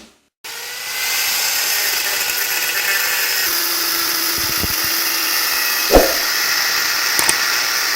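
Power tool running steadily as it cuts into the metal shell of a refrigerator compressor, with a single knock about six seconds in.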